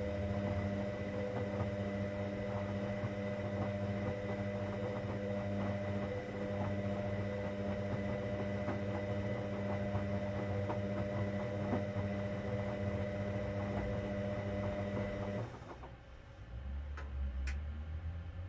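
Hoover Dynamic Next washing machine running a cotton 60 wash: a steady mechanical hum that cuts off suddenly about fifteen seconds in, leaving a quieter low rumble with two short clicks near the end.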